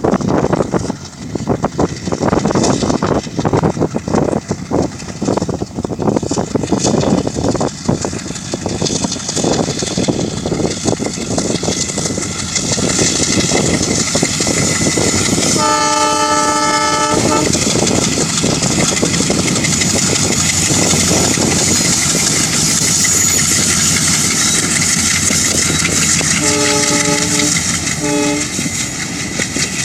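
Two ALCo WDM3D diesel locomotives chugging, their exhaust beating in an uneven rhythm, then the horn sounded in one long blast about halfway through. After that a steadier rumble and clatter of the train, with two short horn toots near the end and another just at the close.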